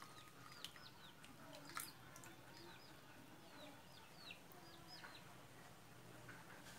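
Near silence, with faint, short, high bird chirps in the background, about two a second, and a few faint clicks.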